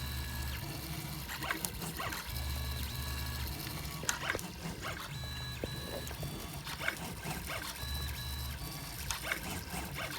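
3D printer mid-print: its stepper motors give short steady whining tones that jump in pitch every second or so as the print head moves. Light clicks run through it, and a low hum comes and goes.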